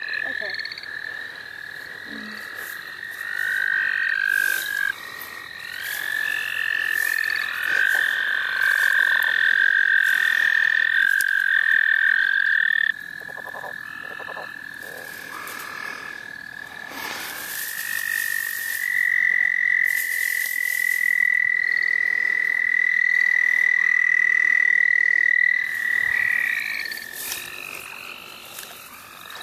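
Chorus of American toads trilling: long, steady, high-pitched trills lasting several seconds each, several overlapping at slightly different pitches. The loudest trill cuts off suddenly about halfway through, and another long one starts a few seconds later.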